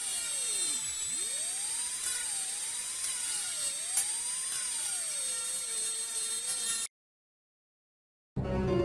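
Dentist's drill whining at a high pitch, its tone wavering up and down as it speeds and slows, then cutting off suddenly about seven seconds in.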